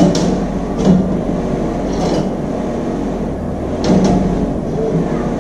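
Glass door pane of a portable stovetop oven being handled against its stainless-steel frame: a few sharp clinks and knocks, spaced a second or two apart, over a steady low hum.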